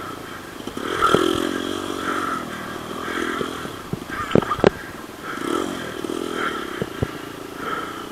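Dirt bike engines revving up and down in waves, with a few sharp cracks in between.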